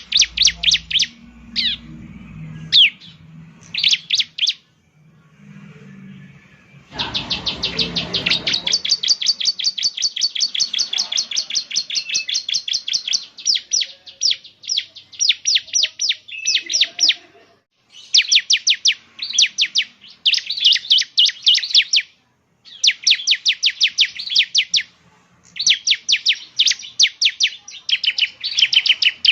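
Bar-winged prinia (ciblek) singing: fast, chattering trains of sharp, high notes, many to the second, in bursts separated by short pauses. A brief low rumble about seven seconds in.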